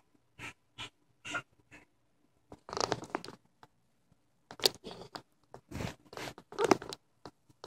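Handling noise from a hand rubbing against a phone case: irregular short scrapes and squeaks, growing more frequent and louder about halfway through.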